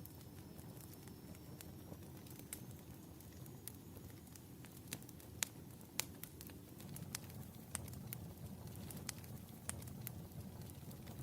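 Wood fire burning in a fireplace: a steady low rumble of flames with irregular sharp crackles and pops, the two loudest pops about halfway through.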